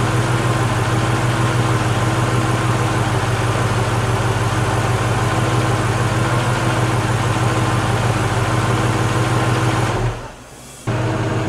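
Mercedes-Benz S-Class engine idling steadily, holding its idle with new MAF and MAP sensors fitted, which the owner takes as the repair working. The sound drops away for under a second near the end, then the same idle returns.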